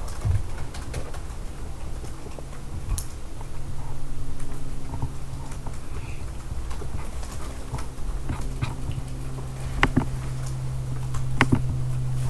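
Room noise: a steady low hum, stronger from about four seconds in, with scattered light clicks and knocks.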